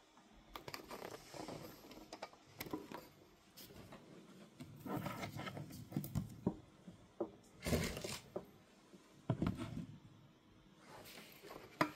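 Handling noises of figures being moved on a tabletop: irregular scrapes, rustles and short clicks as the statuettes' bases are turned and set down, with a few sharper knocks in the second half.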